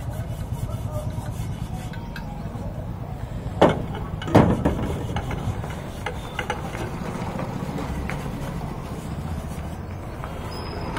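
A metal cooking pot being scrubbed by hand: a rasping rub inside the pot, with two sharp, ringing metal knocks about three and a half and four and a half seconds in, over a steady low rumble.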